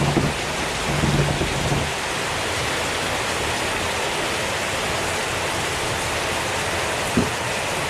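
Heavy rain pouring down steadily, a dense even hiss, with a single low thump about seven seconds in.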